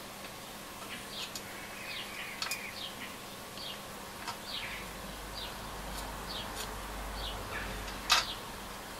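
A small hand tool prying at a tight plastic part of a Nordmende Transita transistor radio: a run of short high squeaks that fall in pitch, light clicks, and one sharp click near the end.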